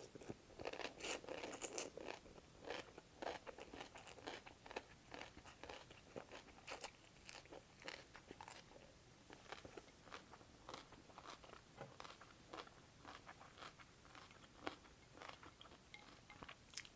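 Close-up crunching and chewing of cold cucumber soup: a steady run of small, irregular crunches, loudest in the first couple of seconds.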